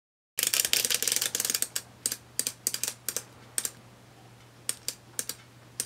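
A run of sharp mechanical clicks, starting suddenly, dense and rapid for about a second, then sparser and irregular.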